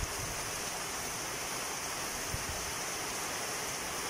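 Heavy tropical rain falling steadily on a yard and foliage: a constant, even hiss.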